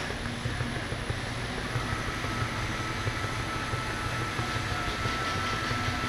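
Conveyor pot-washing machine running: a steady mechanical rumble from its belt conveyors and gear-motor-driven roller, with a thin steady whine joining about two seconds in.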